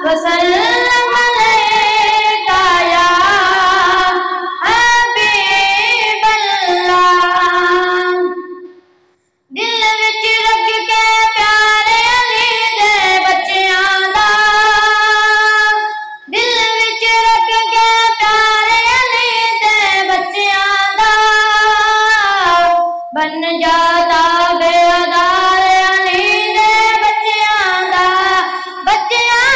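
A boy singing a Punjabi naat solo into a microphone, without instruments, in long held, ornamented phrases. The voice breaks off briefly about nine seconds in, then carries on.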